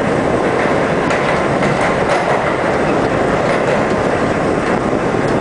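R-32 subway car running on the rails, heard from inside the front car: a steady loud rumble of wheels and motors, with a few faint clicks of the wheels over the track.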